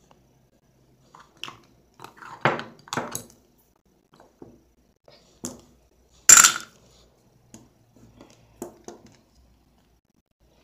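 Small plastic toys and play accessories being handled and set down: a scattering of clicks, taps and clatters, with a busy patch about two to three seconds in and the loudest clatter just after six seconds.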